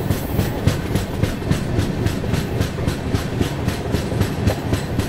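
Wheels of a moving Indian Railways passenger coach running over rail joints: a rapid, even clickety-clack, about five clicks a second.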